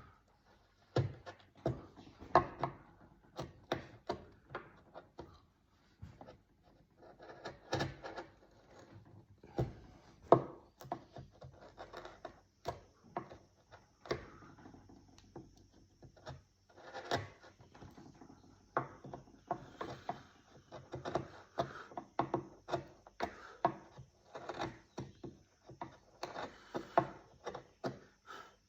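Hand carving of wood: a blade or chisel cutting and scraping in short, irregular strokes, one or two a second, some sharper and louder than others.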